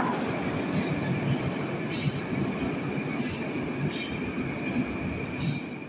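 Moscow Metro train running out of the station into the tunnel: steady running noise with a thin, high wheel squeal and a few sharp clacks from the wheels over the rails, easing off a little toward the end.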